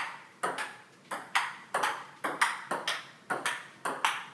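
Table tennis rally: the ball knocking back and forth between rubber paddles and the table top, sharp clicks in close pairs about twice a second in a quick, even rhythm.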